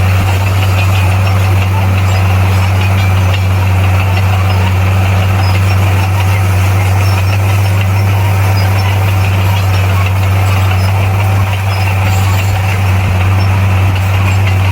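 Bulldozer's diesel engine running steadily: a loud, constant low drone that holds the same pitch and level throughout.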